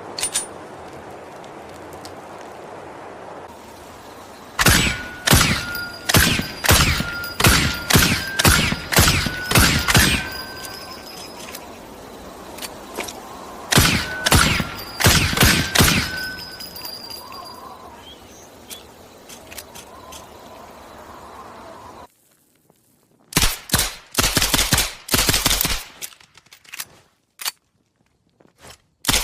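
High Standard Model HD .22 pistol firing in strings of semi-automatic shots, each string several shots about half a second apart. Near the end, after an abrupt change to a silent background, comes a quicker string of shots.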